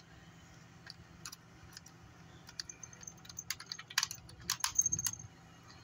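Small plastic clicks and taps as a screwdriver tip works at a stuck 1999 Furby's eye and beak mechanism, growing busier about four seconds in. Mixed in is the light jingle of the small bells on its collar as the toy is handled.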